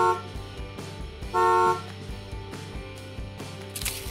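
A horn toots twice, two short even blasts about a second and a half apart, over background music. A brief crackling rustle follows near the end.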